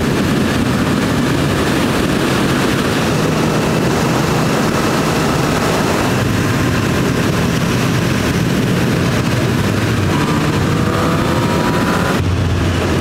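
Motorcycle riding at speed: strong wind rush over the camera, with the Honda CB1000R's inline-four engine running steadily underneath. Near the end the engine note climbs as the bike accelerates.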